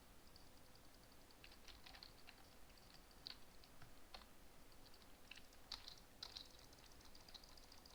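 Faint, irregular clicking: a dozen or so short, sharp clicks scattered unevenly, the loudest a little before and after the six-second mark.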